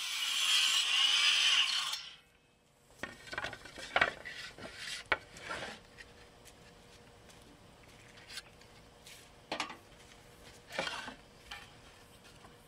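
DeWalt sliding compound miter saw cutting through a wooden plank, the cut ending about two seconds in. After a short gap come scattered knocks and scrapes of the board being slid and repositioned on the saw's table.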